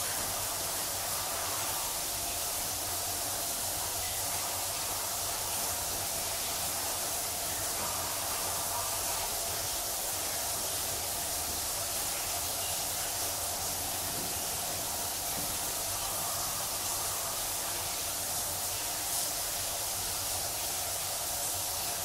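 Shower running: a steady hiss of water spraying from a shower head.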